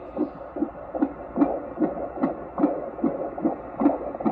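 Unborn baby's heartbeat played through a handheld fetal Doppler's speaker: a fast, even pulse of about two and a half beats a second, around 145 a minute, typical of a fetal heart rate, over a steady hum.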